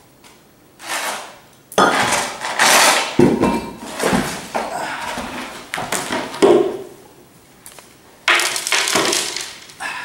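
Broken cinder-block chunks and a plywood bed-of-nails board clattering and scraping as the board is pushed off and set aside: a run of loud, irregular knocks and scrapes, with a pause just before the end.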